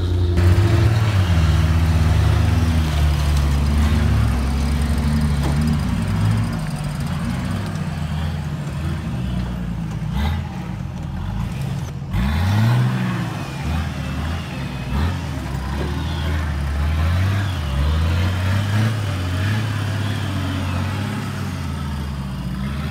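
Off-road 4x4 winch truck engine revving up and down unevenly as it works, with a sharp rev about halfway through.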